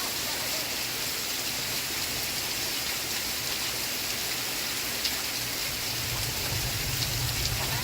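Steady rain falling, an even hiss with a few single drops ticking through it; a low rumble comes in about six seconds in.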